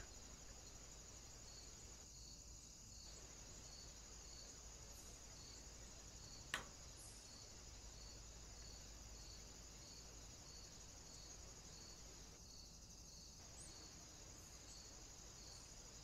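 Near silence: a faint steady high hiss with a soft chirp repeating about twice a second, and a single sharp click about six and a half seconds in.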